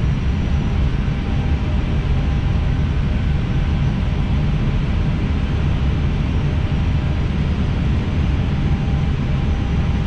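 Steady cockpit noise of an Airbus A320 on short final approach: a continuous rush of airflow and engine noise with a deep low end and a few faint steady whine tones above it.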